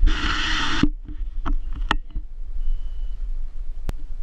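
Oars of a wooden rowboat knocking now and then in their rope-and-post oarlocks as the boatman rows, over a steady low rumble of wind and handling on the camera microphone. A loud rush of noise fills the first second.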